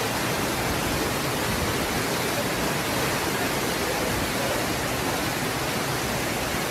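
Fast-flowing floodwater rushing down a street, a steady, unbroken rush of water noise.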